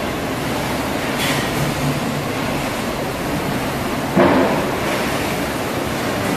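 Commercial conveyor dishwasher running: a steady rush of spraying water and machinery, with one brief louder clatter a little past the middle.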